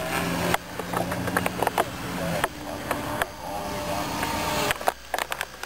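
Small electric RC helicopter, an Align T-Rex 250, flying overhead: a steady motor and rotor hum that changes pitch about halfway through, with short thumps and clicks on the microphone throughout.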